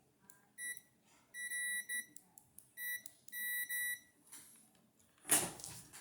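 Kaiweets HT118A digital multimeter's continuity beeper giving a steady high beep in uneven stretches, some brief and some about a second long, each time the test-lead tips touch and close the circuit. A loud brief knock or rustle comes near the end.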